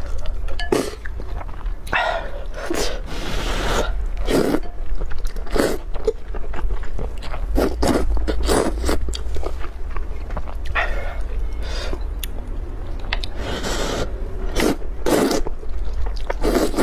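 Close-miked eating sounds: noodles in spicy broth being slurped into the mouth in drawn-out sucks, with wet chewing between them.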